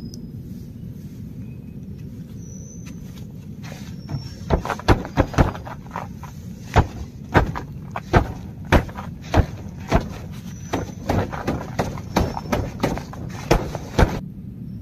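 Heavy drops falling irregularly onto the taut tent fly, each landing as a sharp tap, about two or three a second, over a steady low background. A few short high chirps are heard now and then.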